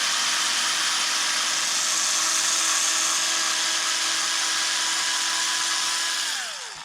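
Electric drill-driver with a 2.5 mm hex bit, running at a steady high whine while backing out the bottom-plate screws, then spinning down with a falling pitch near the end.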